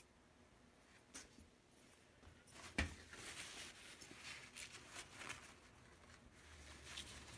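Faint handling sounds from a stripped snowmobile carburetor being turned over and wiped with a paper towel: a light click about a second in, a sharp knock a little before the middle, then soft rustling of the towel with a few small clicks.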